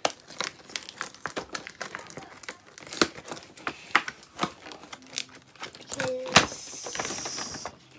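Cardboard L.O.L. Surprise OMG doll box being handled and worked at to open it: irregular crinkling and crackling of the packaging, with one louder snap about two-thirds through followed by a brief hiss.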